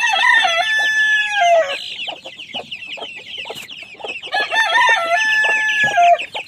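A rooster crows twice, each crow about two seconds long and ending on a falling note, one at the start and one about four seconds in. Between and under the crows, other chickens keep up a dense run of quick, high clucks and chirps.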